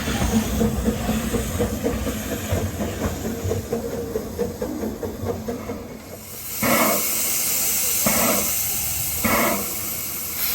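Narrow-gauge steam locomotive: a rumbling run for about six seconds, then a steady hiss of steam broken by three louder puffs about a second or more apart.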